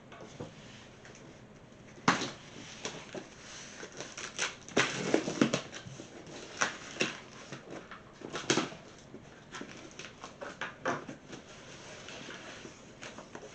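Cardboard box being opened and handled: irregular knocks, clicks and rustling, with the sharpest knock about two seconds in.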